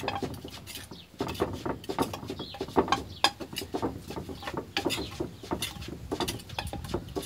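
Wooden pestle pounding and a metal spoon stirring in a clay mortar, a run of irregular knocks, several a second, as pounded salad ingredients are mixed together.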